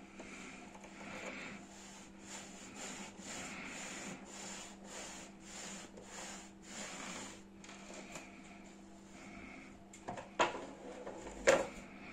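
Boilie rolling table worked back and forth by hand, the top plate scraping over the bottom one in quick strokes, about two to three a second, as it cuts and rolls a sausage of bait paste into 20 mm balls. Two sharp knocks about a second apart near the end.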